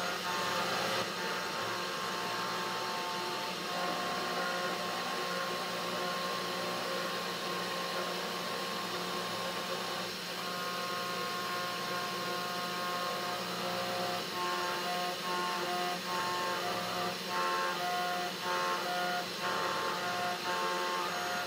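Desktop CNC router (3018 Pro Max) engraving an acrylic plate under water with a V-bit. The spindle motor runs steadily while the stepper motors sing in steady tones that start, stop and change pitch as the axes move. The moves get short and choppy in the last third.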